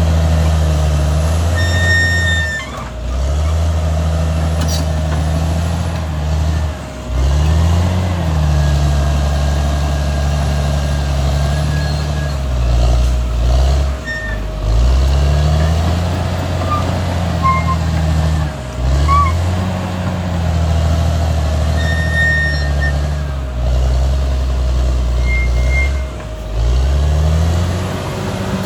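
Caterpillar D6R XL bulldozer's diesel engine working under load, its note dipping and picking back up several times as the machine pushes earth. A few brief high-pitched chirps sound over it.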